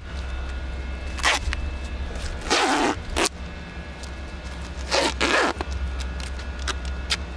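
A coil of blue half-inch PEX tubing being pulled loose by hand, the plastic rasping and scraping against itself in four short bursts over a steady low hum.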